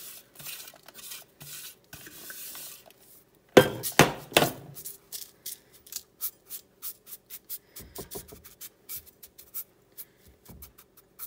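Graham cracker crumbs sliding out of a plastic food processor bowl into a parchment-lined glass pie dish, with three loud knocks a little over three seconds in. Then fingers spread and pat the crumbs over the parchment, a quick run of soft ticks and rustles.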